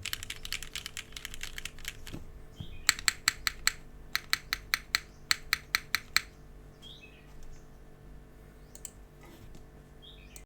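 Typing on a Sagrada gasket-mount mechanical keyboard with Cherry Black linear switches and GMK keycaps. A quick burst of keystrokes comes first, then about a dozen louder, evenly spaced single key strikes at about four a second, then a few lighter, scattered keystrokes.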